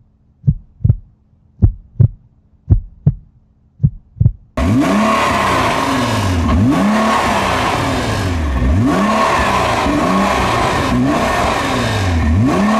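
A heartbeat sound effect: paired low thumps about once a second over a faint hum. About four and a half seconds in, it cuts abruptly to a Nissan GT-R's twin-turbo V6 driving hard, its revs repeatedly dropping and climbing, with heavy wind noise.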